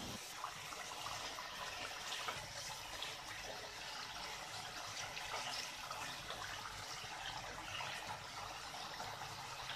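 Fish curry gravy simmering in an open aluminium pot, a faint steady bubbling.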